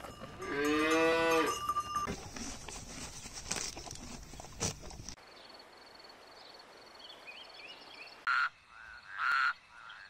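A cow moos once, a call of about a second that rises then falls in pitch, with a cowbell clanking. After a quieter stretch, a few short frog croaks come near the end.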